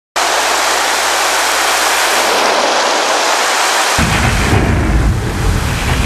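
Keyboard synthesizer playing sound-effect patches: a steady water-like hiss, joined suddenly about four seconds in by a deep, thunder-like rumble.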